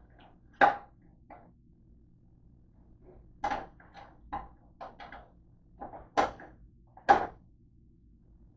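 Wire rack of a stainless-steel countertop toaster oven being pulled out and handled, metal clanking against the oven's rails in a string of sharp knocks. The loudest come about half a second in and again around six and seven seconds in.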